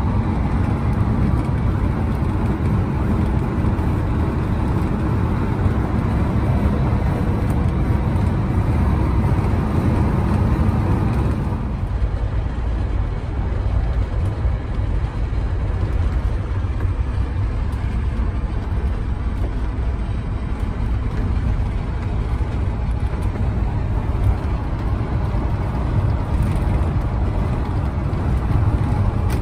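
Cabin noise inside a camper van cruising on a motorway: a steady low rumble of engine and tyres on the road, with the higher hiss dropping away about twelve seconds in.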